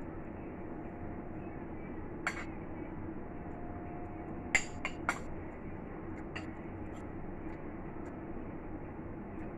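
Metal spoon clinking against a ceramic bowl while eating: one clink about two seconds in, three quick clinks near the middle, then a couple of faint ticks.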